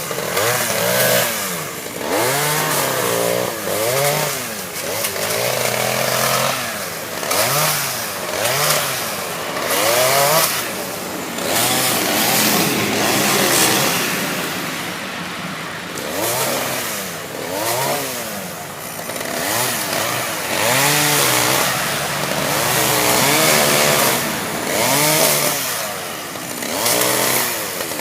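Chainsaw engine revved up and down over and over, its pitch rising and falling every second or two, as it cuts during tree felling.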